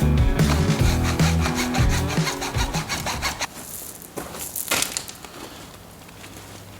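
Hand saw cutting plastic plumbing pipe in quick back-and-forth strokes, with background music that ends about three seconds in; the sawing fades near the end.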